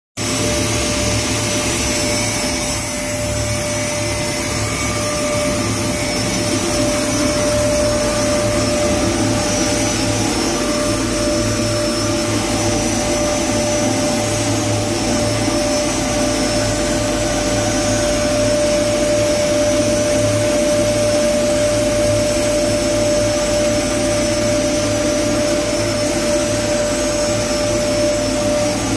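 CWF-series ultrafine powder grinder running steadily while pulverising wood shavings into fine powder: a continuous whirring rush with a constant high whine.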